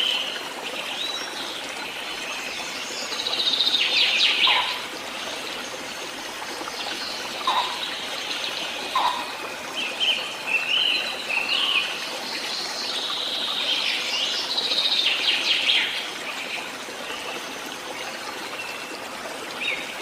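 Songbirds chirping and warbling over a steady trickling stream, with the birdsong at its busiest about a few seconds in and again in the second half.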